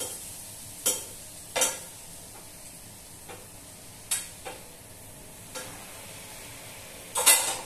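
Steel spoon scraping and knocking against a non-stick frying pan as stir-fried broccoli is tipped out into a bowl: several sharp clinks, the loudest near the end, over a faint steady hiss.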